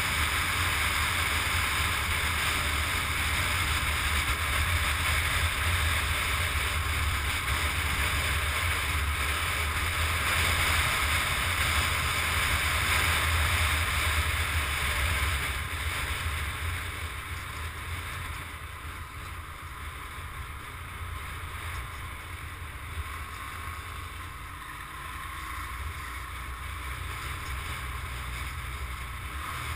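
Wind rushing over the camera's microphone on a moving motorcycle, with the bike's engine running underneath as a low rumble. It gets quieter from about halfway through as the bike slows.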